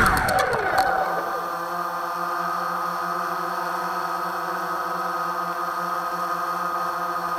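Walkera Scout X4 quadcopter's electric motors whining down in pitch as it touches down on asphalt, with a few light knocks in the first second, then a steady lower hum.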